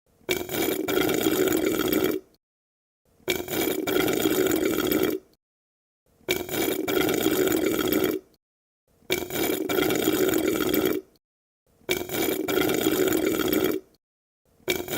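Drinking through a straw: a sucking sound lasting about two seconds, repeated five times with short silent gaps, and a sixth starting near the end.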